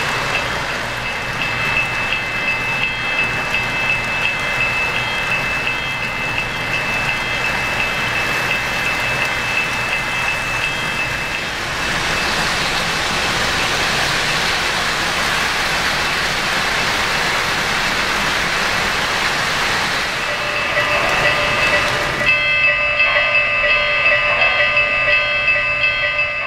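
O-gauge model trains rolling past on the layout track: a steady rolling rumble and clatter of wheels on rail. About four seconds before the end, a steady pitched sound with a pulsing rhythm comes in over it.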